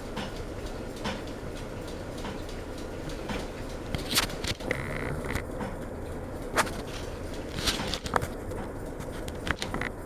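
Craftmade Phoenix ceiling fan running with a steady hum, with faint ticks about once a second and a few louder, sharper clicks in the second half. The fan is wobbling badly as it turns.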